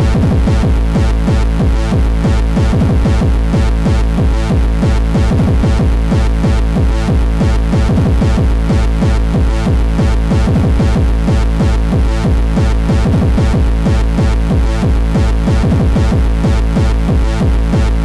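Amiga tracker-module hardcore techno at 186 bpm: a fast, steady kick drum at about three beats a second under looping synth lines and a heavy bass.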